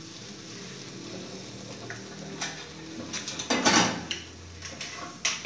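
Silicone spatula stirring a thick dal-and-milk mixture in a frying pan, scraping and knocking against the pan several times, loudest about three and a half seconds in, with a sharp knock near the end.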